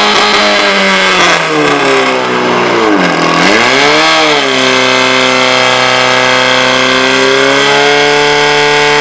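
Portable fire pump engine running at high revs; its pitch sags about two to three seconds in, climbs back, then holds steady as it drives water through the hose lines to the target jets.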